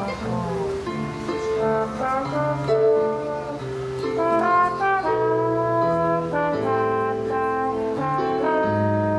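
Slide trombone playing a slow jazz melody in long held notes, accompanied by chords on a digital stage piano.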